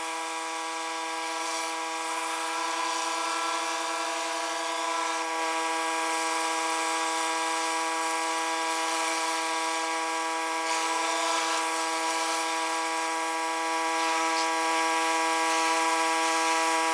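Pressure washer running steadily with a constant pitched whine over the hiss of spray, as a rotary surface cleaner is pushed across concrete.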